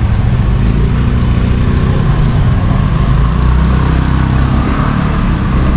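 A car's engine running close by in slow street traffic, a loud steady low rumble.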